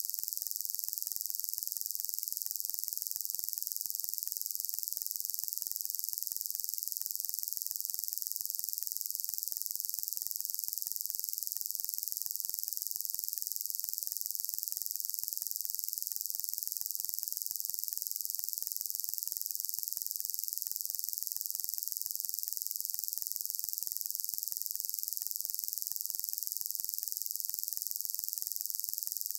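Steady high-pitched hiss with nothing under it: recording noise only, with no drilling or machine sound.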